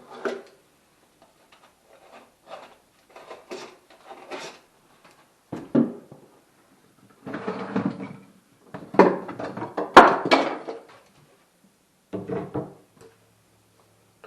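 A series of irregular knocks, clunks and clatters, like objects being handled and set down indoors, with the loudest cluster of bangs about nine to ten seconds in.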